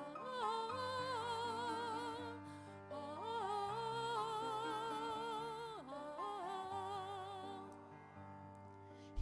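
A woman singing long held notes with a wide vibrato to grand piano accompaniment. Near the end her voice stops and the piano plays on alone.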